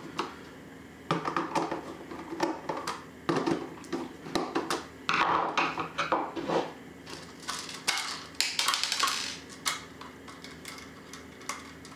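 Hand screwdriver backing out the small screws of a CNC controller box's top cover, then the cover being handled off: irregular clicks, scrapes and light clatter over a faint steady hum.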